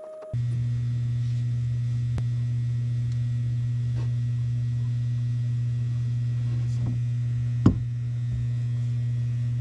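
A steady low hum that starts suddenly just after the beginning and holds at one pitch, with a single sharp click near the end.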